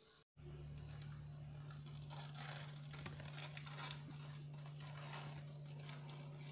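Hands crinkling and tearing crumpled foil wrapping off a cake, many short scratchy rustles over a steady low hum.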